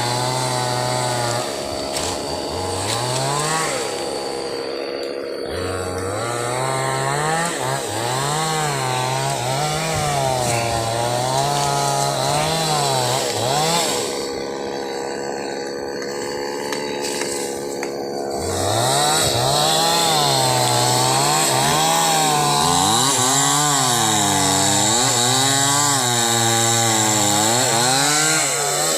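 Two-stroke chainsaw cutting through a timber beam, its engine revving up and down again and again, the pitch rising and falling every second or so as the chain bites and eases.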